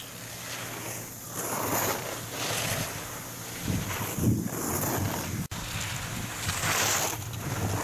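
Skis carving turns on hard, groomed snow: a rushing scrape that swells and fades about once a second, with wind on the microphone. A brief dropout comes about five and a half seconds in.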